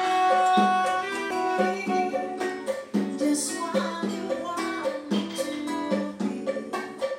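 A small live band playing: singing over plucked acoustic guitar, with a steady beat.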